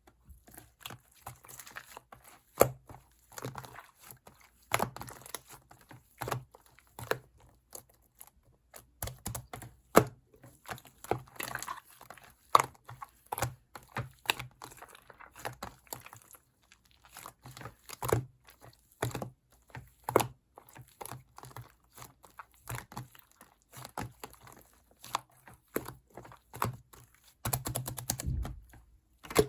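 Irregular clicks, taps and crinkling, like small objects and packaging being handled, with a heavier knock near the end.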